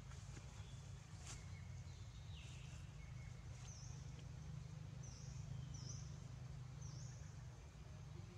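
Faint outdoor ambience: a steady low rumble, a single click about a second in, and short high falling chirps about once a second from midway on.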